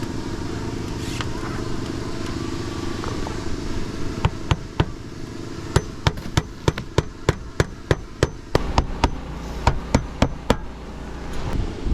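A hammer driving nails by hand, a run of quick sharp blows about three a second that starts about four seconds in. Steady wind noise on the microphone runs underneath.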